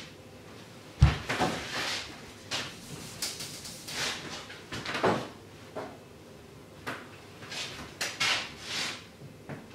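A single sharp thump about a second in, then a series of short scrubbing strokes as writing is wiped off a whiteboard, coming in bursts with brief pauses.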